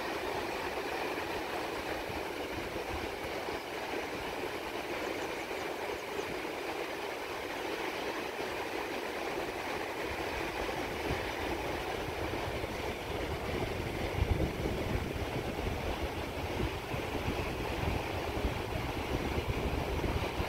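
Ocean surf breaking on the shore: a steady, continuous rush of waves, with a gusty low rumble growing stronger about two-thirds of the way through.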